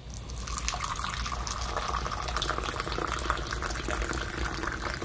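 Hot mint tea poured in a steady stream from a metal Moroccan teapot into a drinking glass, starting about half a second in.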